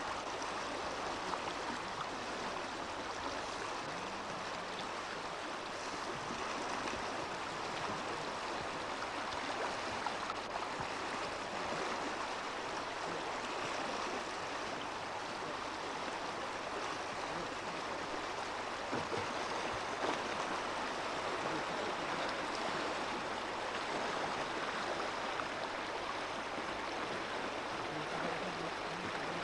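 River rapids on a whitewater slalom course, rushing steadily.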